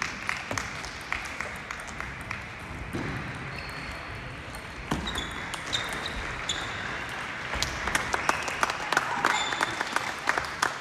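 Table tennis balls clicking off bats and tables, a rally at the near table among many others going on across a reverberant hall, over a steady murmur of voices. The clicks come thickest in the last few seconds, with a few short high squeaks among them.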